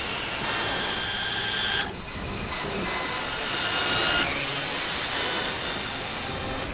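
Designed sound-effect ambience: a dense, steady rushing drone layered with thin high tones, some of which slide upward. It dips briefly about two seconds in, then carries on.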